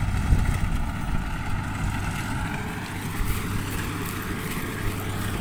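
Combine harvester running with a steady engine drone.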